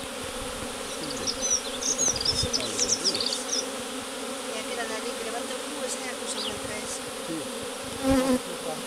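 Honeybee swarm buzzing steadily as the bees move onto the frames and into a new hive, many flying around close by; the bees at the hive front fan their wings to spread scent and call the rest of the swarm in. A few high chirps come between one and four seconds in, and the buzz swells louder near the end.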